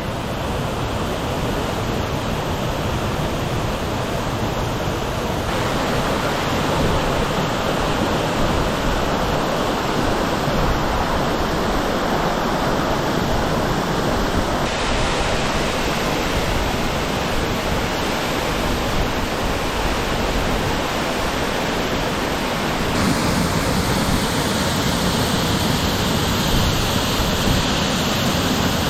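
Waterfall: a steady rush of water falling down a winding cascade, its tone shifting slightly a few times.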